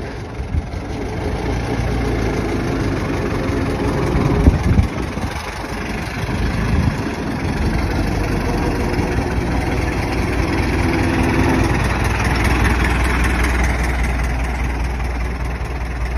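Old car engine running at idle and low revs. A few sharp knocks come around four to five seconds in, briefly the loudest part.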